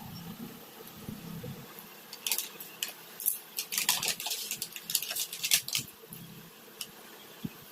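Packaging of a paint kit being handled and opened: a run of sharp clicks and crinkles from about two to six seconds in, then a few scattered taps.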